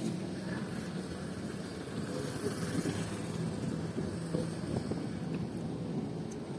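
Road traffic heard from a moving bicycle: a steady mix of motor-vehicle engine hum and tyre noise, with no single event standing out.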